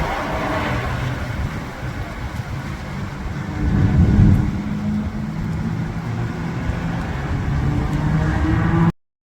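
Heavy wind gusting and buffeting the microphone in a rainstorm, with a louder gust about four seconds in. The sound cuts off abruptly near the end.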